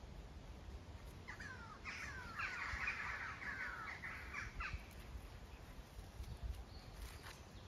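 Harsh, crow-like bird calls: a quick run of falling calls lasting about three and a half seconds, starting just over a second in, over a low rumble of wind on the microphone.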